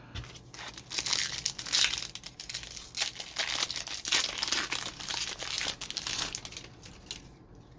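Foil trading-card pack wrapper being torn open and crinkled in the hands, an irregular run of crackling rustles with louder bursts every second or so.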